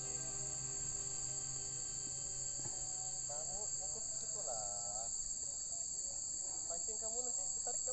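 Insects droning steadily at two high pitches, a continuous shrill chorus, with faint distant voices.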